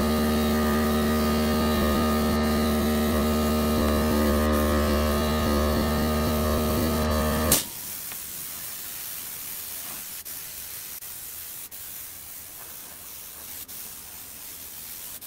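An air compressor's motor hums steadily under the hiss of a spray gun, then stops suddenly with a click about seven and a half seconds in, leaving a quieter steady air hiss from the gun.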